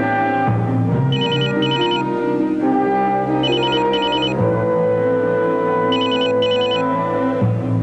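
Telephone ringing with an electronic double ring: three pairs of short high bursts, repeating about every two and a half seconds, over background music of sustained chords.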